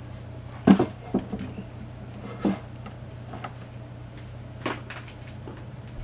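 Several knocks and clunks of a small table fan's base being handled and set down on a wooden tabletop; the loudest comes just under a second in, with smaller ones after it. A steady low hum runs underneath.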